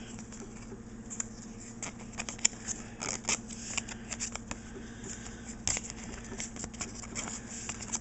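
Pokémon trading cards being flipped through by hand: a string of quick, irregular flicks and slides as each card is slipped behind the others, growing busier after the first few seconds.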